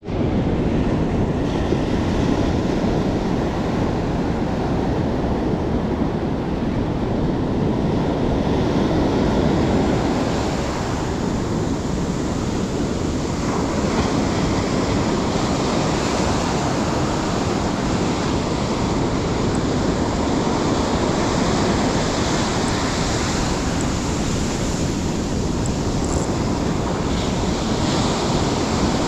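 Ocean surf breaking steadily on the beach, with wind rumbling on the microphone.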